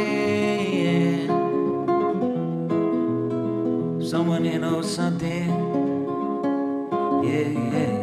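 A man singing to his own plucked classical guitar in a live solo folk song. The voice comes in phrases, at the start, in the middle and again near the end, over continuous guitar.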